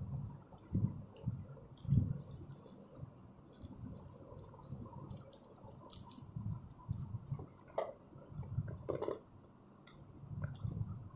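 Hands handling a cardboard earphone box and its paper insert: soft irregular thumps, rustles and light clicks as the wired earphones are lifted out of the tray.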